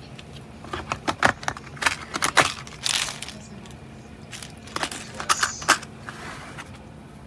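Plastic tool-kit pieces being handled: a run of sharp clicks and knocks, a short rustle in the middle, then more clicks.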